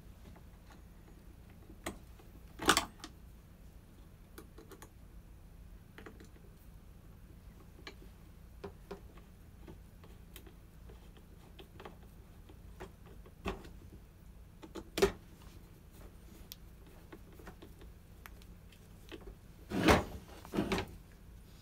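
Chainsaw parts and hand tools being handled during reassembly: irregular clicks and knocks a few seconds apart, the loudest about three seconds in and a close pair near the end.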